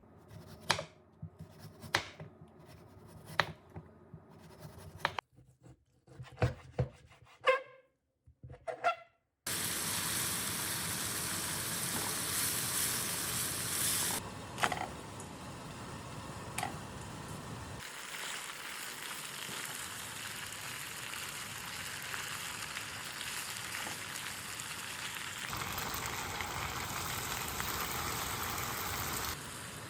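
A few scattered knocks and clicks of utensils, then food sizzling steadily in a frying pan, the sizzle stepping abruptly louder or softer a few times.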